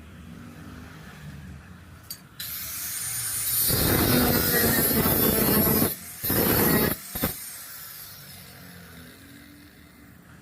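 A power tool grinding on sheet metal, starting about two seconds in and building up, then a short pause and a second brief burst before it stops.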